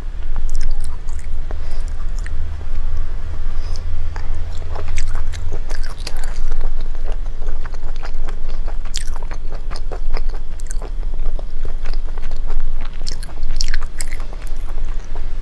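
Close-miked chewing and biting of squid in spicy sauce: many short, wet mouth clicks and smacks in an uneven run.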